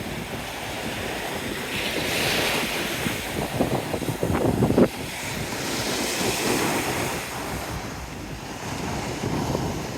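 Surf washing onto a sandy beach, swelling twice, with wind buffeting the microphone, hardest about halfway through.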